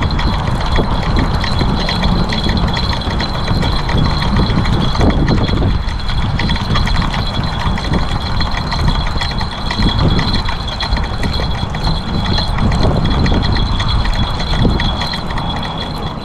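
Wind buffeting the camera microphone in a steady low rumble, with a fine rapid ticking and a thin high whine over it.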